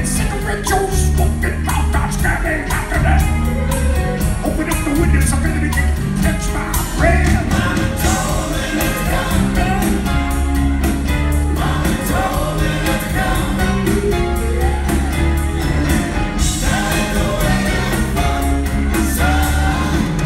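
Rock band playing live with drums, bass, electric guitars and keyboards, with a steady, driving drum beat throughout.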